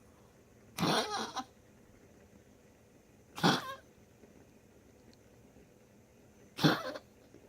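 A dog coughing as it breathes out, recovering from tracheal ring surgery: three short coughs about three seconds apart, the first one longer and double.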